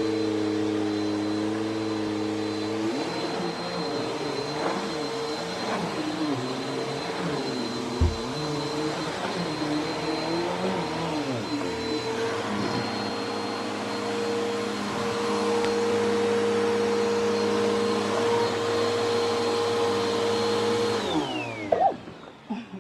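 Dirt Devil vacuum cleaner running on carpet with a steady high whine, its lower hum wavering as it is worked back and forth, and one sharp knock about 8 seconds in. Near the end it is switched off and the motor winds down with a falling pitch.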